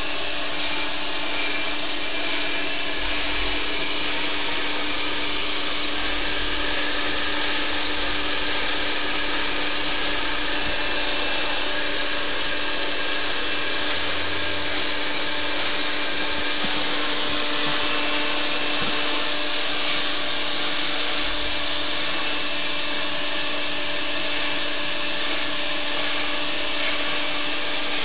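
Handheld hair dryer blowing steadily: a constant rush of air over a steady motor hum.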